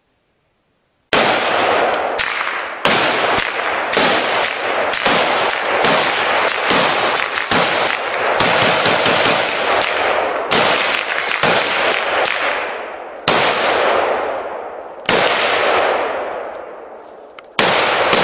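Rapid gunfire from an AR-15-style rifle and a handgun fired together, the shots coming fast and overlapping, each trailing off in echo. It starts about a second in, with a few short lulls near the end.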